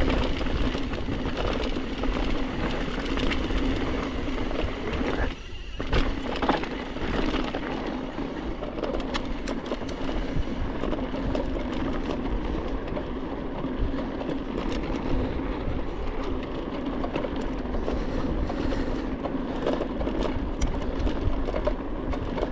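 Mountain bike rolling fast down a dirt trail: tyre rumble and rattling of the bike under a steady hum, with scattered clicks and knocks. The rolling noise briefly thins about five seconds in.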